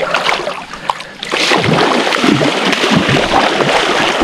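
Wels catfish thrashing and splashing hard in shallow water at the bank. The splashing starts about a second in and goes on loud and irregular, with low thumps: a larger catfish is striking at the smaller hooked one.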